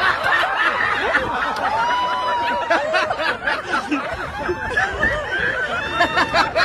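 A crowd of people laughing and chattering, many voices overlapping.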